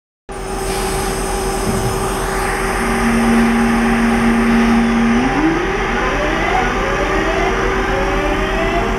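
London Midland Class 323 electric multiple unit pulling out of the platform: a steady electrical hum, then from about five seconds in, the traction motors whine in several tones that rise together as the train gathers speed.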